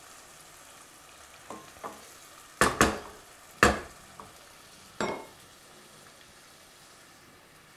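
Wooden spoon stirring chopped tomatoes in a sauté pan, knocking against the pan about six times, over a faint steady sizzle from the pan on low heat.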